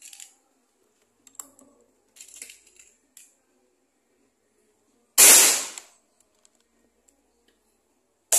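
FX Impact M3 PCP air rifle fired once, about five seconds in: a single loud, sharp shot that dies away within half a second. A few light clicks come before it, and the next shot starts right at the end.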